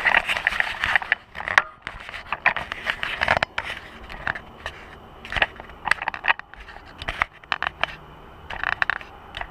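Handling noise from a camera being moved and set down: irregular scrapes, rustles and knocks close to the microphone, busiest in the first few seconds.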